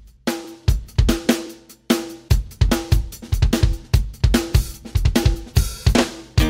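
Intro music: a drum kit beat of bass drum, snare and cymbal hits with a pitched tone, stopping briefly about two seconds in before the beat resumes.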